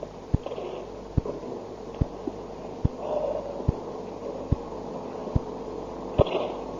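A pause in speech on an old cassette recording: faint background hum and hiss with a soft low thump repeating evenly, a little more than once a second.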